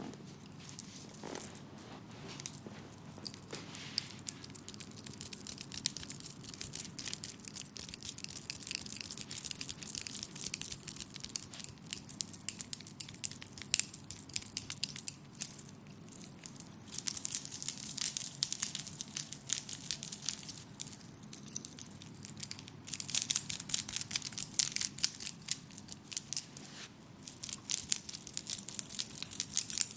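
Leg massage with hot oil: hands working over the skin with a rapid metallic jingling and clicking that comes in spells and grows louder about three-quarters of the way through.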